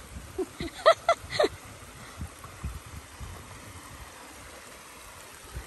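Woodland stream running over a small log dam, a steady rush of water. A short burst of a voice comes about a second in.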